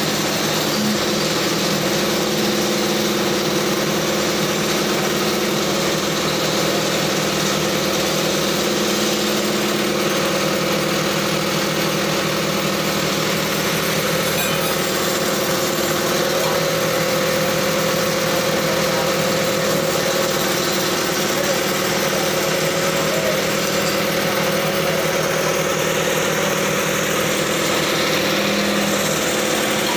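Crane truck's engine running steadily at a constant speed, a continuous even engine drone with no change in pitch.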